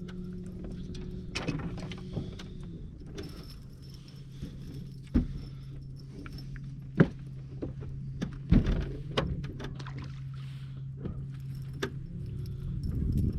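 Scattered knocks, clicks and light rattles of fishing gear being handled in a boat, over a steady low motor hum whose pitch steps down near the start and back up near the end.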